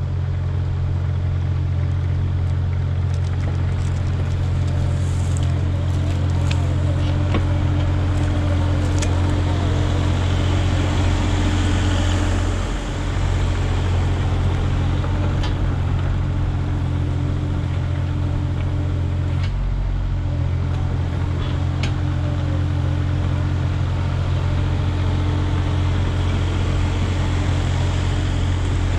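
Kubota KX040-4 mini excavator's three-cylinder diesel engine running steadily under hydraulic load, with a brief dip in engine note about halfway through. Scattered sharp clicks and clanks of the steel tracks and bucket on stony soil.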